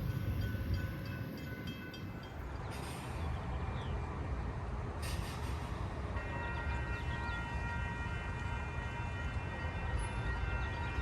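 A train rumbling past, with its horn sounding steadily from about six seconds in.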